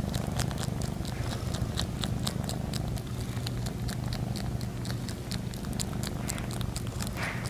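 A cat purring loudly and steadily, close up, with a quick run of light clicks over the purr.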